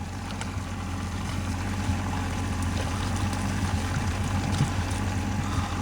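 Boat engine running steadily with a low, even hum, under a wash of water noise and a few light knocks.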